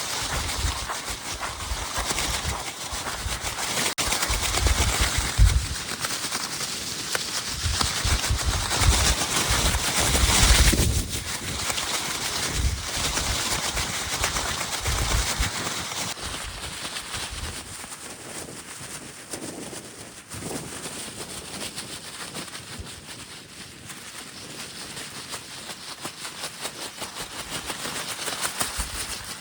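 Wind buffeting the microphone outdoors: irregular deep rumbling gusts over a steady hiss, heavy through the first half and easing to a quieter, even hiss after about sixteen seconds.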